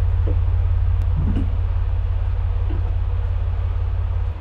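Semi truck's diesel engine idling, a loud, steady low rumble with a few faint knocks over it. The level drops suddenly near the end.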